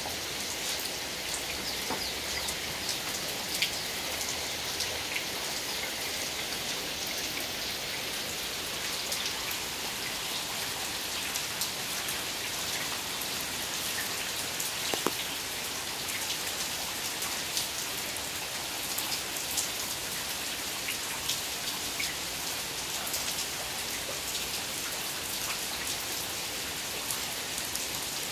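Heavy rain pouring steadily, splashing into standing water on the ground, with scattered sharper drop splats.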